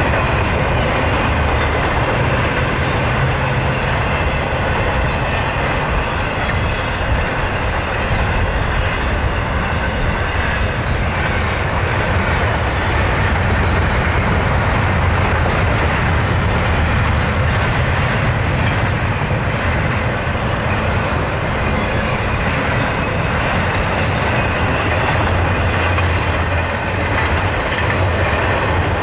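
Double-stack intermodal freight train's container well cars rolling past: a steady rolling noise of steel wheels on rail, heaviest in the low end.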